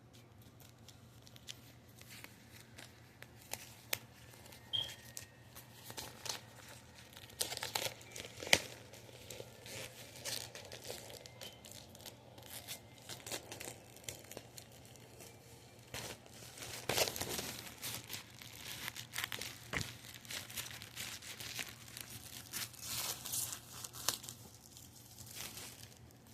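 Packaging being torn open and crumpled by hand while unboxing a calendar: irregular rustling with sharp clicks, in bursts that come and go, the loudest about a third of the way in.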